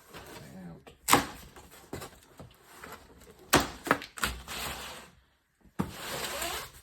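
A cardboard box being opened and its contents handled. Two sharp knocks about a second and three and a half seconds in, with smaller clicks between, then two stretches of rustling and scraping of cardboard and packaging near the end.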